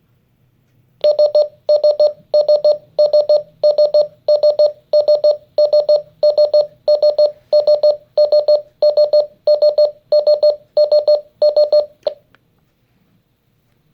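RadioShack 12-991 alarm clock's alarm beeping: quick bursts of several short, high beeps, repeating a little under twice a second. It starts about a second in and stops abruptly near the end.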